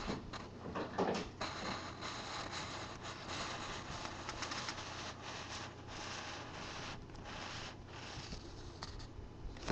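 Faint handling noise: soft rubbing and light scratching over a low steady hiss.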